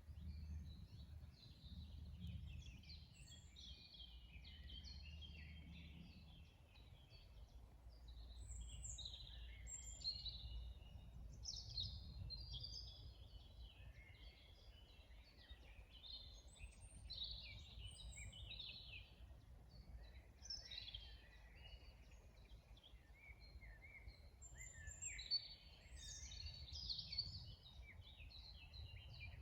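Several songbirds singing and twittering in a quiet chorus of short, quick phrases, over a faint low rumble.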